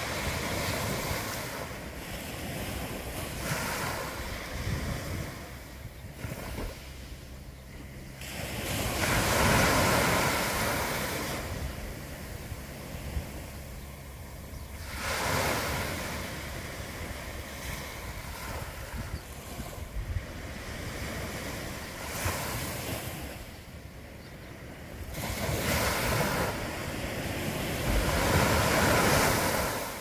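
Small sea waves breaking on a sandy beach and washing up the shore, the surf swelling and falling away in several separate surges, the loudest about ten seconds in and near the end.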